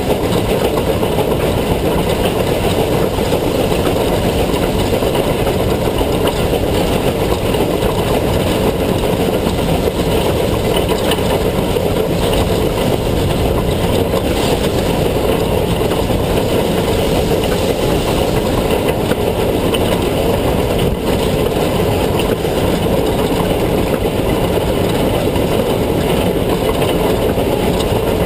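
Steady, loud rumble of narrow-gauge K-36 steam locomotive 487 running along the track, picked up at its front headlight, with wind rushing on the microphone and no separate exhaust beats standing out.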